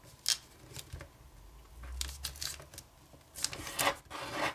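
Sheet of kami origami paper crinkling and rustling as it is unfolded and folded and creased by hand, in short crisp crackles that bunch up about two seconds in and again past three seconds.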